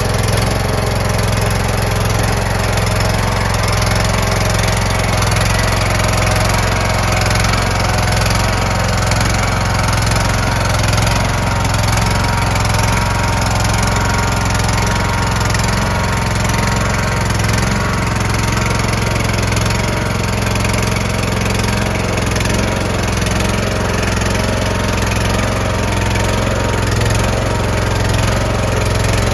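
Craftsman lawn tractor engine running at a steady speed while the converted six-wheel tractor is driven slowly.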